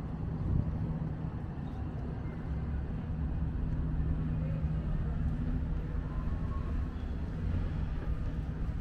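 Steady low mechanical hum and rumble with a constant droning tone, over a general outdoor background.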